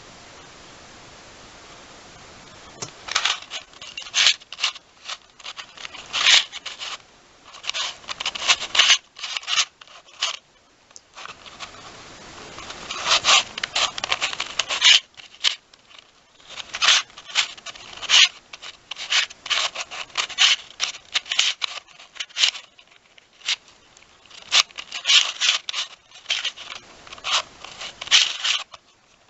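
A 3D-printed Square-1 puzzle being turned fast in a speedsolve: irregular bursts of plastic clicking and scraping as the layers twist and slice, with short pauses between runs of moves. The first three seconds hold only a low steady hiss.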